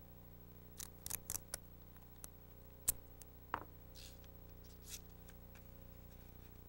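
Paper strips and adhesive tape being handled while a paper hoop is formed: scattered short crinkles and clicks through the first five seconds, the loudest about three seconds in. A faint steady hum lies underneath.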